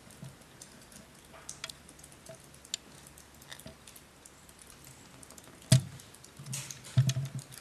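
Scattered small clicks and ticks, with a sharp, loud knock about two-thirds of the way through and a few more louder knocks near the end.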